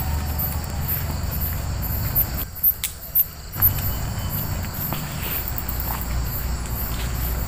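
Crickets or similar night insects chirping in a fast, even, high-pitched pulse, over a low rumble of handling and footsteps, with a few sharp knocks near the middle.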